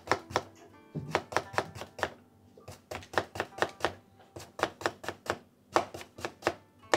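Kitchen knife scoring a thick slice of raw daikon radish on a plastic cutting board: a quick series of sharp taps, about three or four a second with brief pauses. Each stroke is stopped by chopsticks laid either side of the slice, so the cuts go deep without going through.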